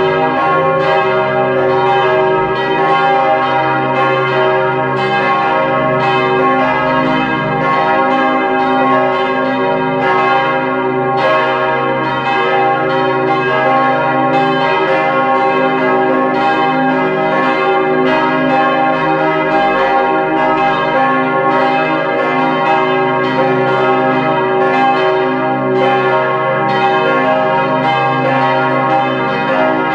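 Church bells from a four-bell peal cast by Perner, tuned C, E-flat, G and B-flat, ringing together. The strikes overlap continuously, so the sound stays loud and dense, with the bells' hum sustained underneath.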